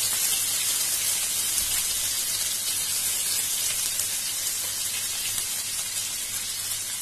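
Sliced onions sizzling in hot refined oil in a non-stick frying pan: a steady high hiss.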